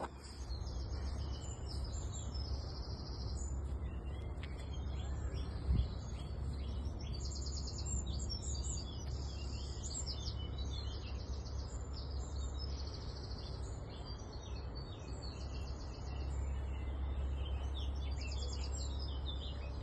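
Several birds chirping and trilling in quick repeated phrases, over a steady low rumble of wind on the microphone. There is one brief thump about six seconds in.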